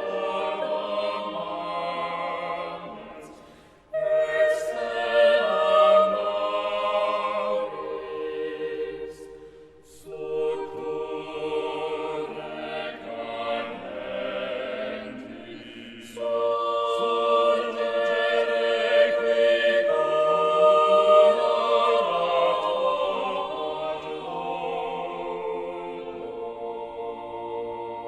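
Choir singing in long held phrases, with short breaks between phrases about four, ten and sixteen seconds in.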